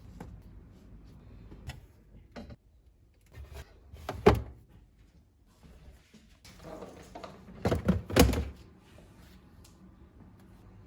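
Knocks and thunks of things being handled and set down in a fridge-freezer. The loudest comes about four seconds in, then a stretch of rustling and two sharp knocks close together about eight seconds in.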